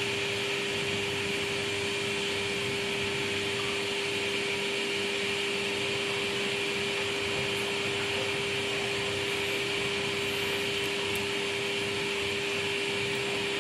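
Miele Professional Edition 90 front-loading washing machine running early in its wash cycle: a steady hum with an even hiss over it.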